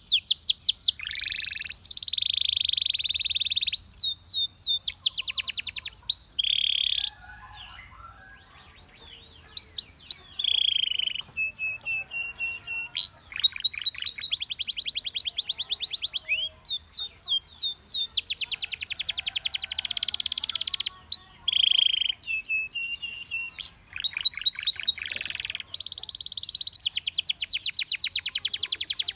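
Domestic canary singing a long song of fast trills and buzzy rolls, with a short lull about seven seconds in.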